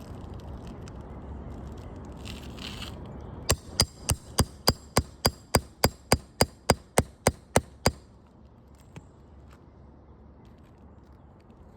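A quick, even series of about seventeen sharp taps, about four a second, lasting around four seconds, each with a short high ring.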